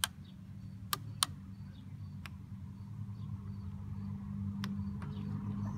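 Sharp plastic clicks and taps as the instrument cluster's housing and circuit board are pressed and worked back into place, about six in all, the loudest within the first second and a half. A steady low hum runs underneath and grows louder toward the end.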